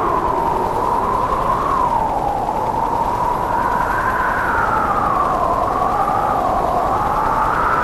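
A wavering, siren-like howl: two tones that slowly rise and fall together over a steady rushing noise.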